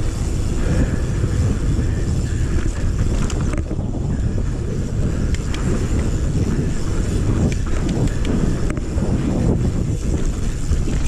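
Wind rushing over an action camera's microphone on a mountain bike, with the rumble of the tyres rolling over a dirt trail and scattered clicks and rattles from the bike over bumps.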